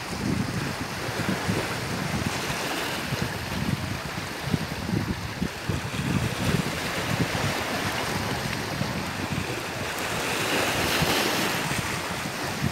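Sea waves washing onto the shore, with wind buffeting the microphone. A wave swells up and breaks near the end.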